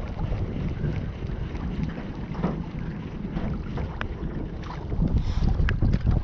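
Wind buffeting the microphone out on an open boat, with a few light clicks and knocks; a little louder in the last second or so.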